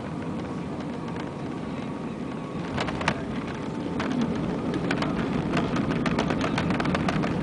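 Inside the cabin of an Airbus A320 during landing: a steady low rush of engines and air, then a sharp knock about three seconds in as the wheels touch down. After that the noise grows louder, with a run of rattles and knocks as the jet rolls on the runway and the ground spoilers go up.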